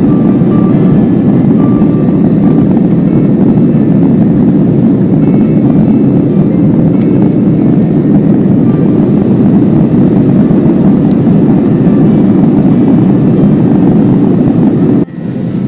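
Jet airliner cabin noise in flight, heard from a passenger seat: a loud, steady, deep noise of engines and airflow. It drops suddenly about fifteen seconds in to a quieter level.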